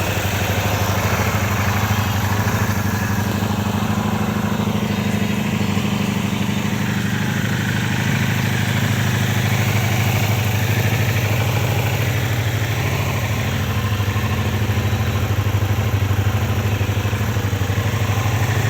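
Honda VF500F Interceptor's V4 engine idling steadily, with no revving.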